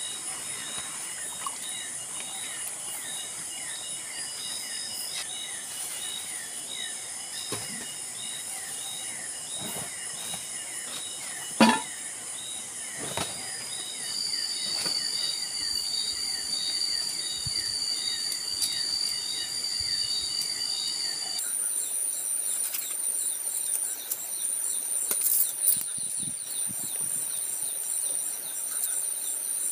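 Tropical forest ambience: a steady chorus of high-pitched insects with fast pulsing calls, and bird calls. A single sharp knock sounds about twelve seconds in, and the insect chorus changes abruptly around twenty-one seconds in.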